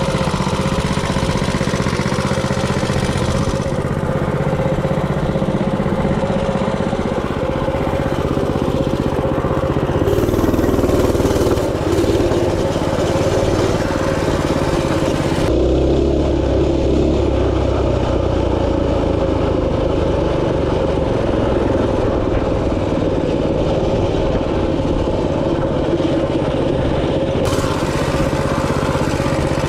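Minibike engine running steadily while the bike is ridden, with its tone shifting abruptly a few times.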